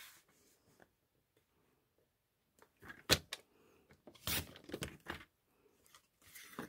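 A sharp click about three seconds in, then the blade of a sliding paper trimmer scraping along its rail in short strokes as it slices through cardstock.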